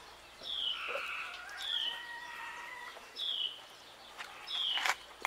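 A bird chirping: four short, high, falling calls, one about every second and a half.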